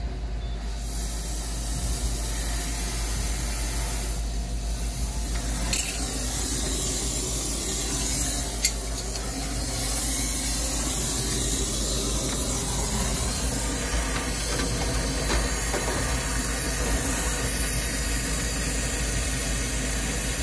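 Brazing torch hissing steadily as its flame heats the copper joint on a refrigeration expansion valve (TXV) to unsweat it. A sharp click comes a little before halfway, and the hiss is a little louder from there on.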